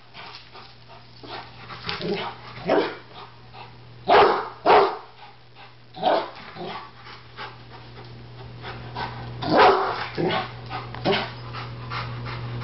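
Rottweiler barking at a small kettle grill it takes for a threat: single barks and pairs with pauses between, the loudest pairs about four seconds in and near ten seconds.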